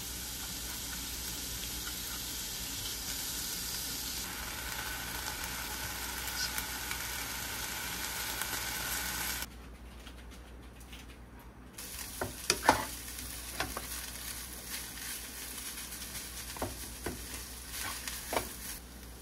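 Food sizzling in a frying pan, a steady hiss that cuts off suddenly about halfway through. A little later come light clinks and taps, like utensils on dishes or a pan.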